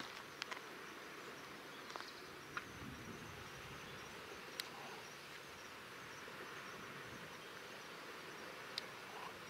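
Faint outdoor ambience: a steady soft hiss with a few brief, high chirps scattered through it.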